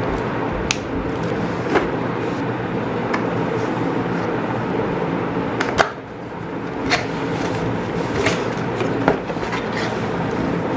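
Packaging being handled during an unboxing: a handful of sharp clicks and knocks scattered over a steady background noise.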